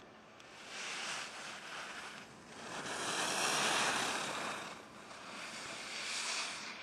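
A ski racer's skis carving and scraping over packed snow on giant slalom turns, a hissing rush that swells three times and is loudest about three to four seconds in, as the skier passes close.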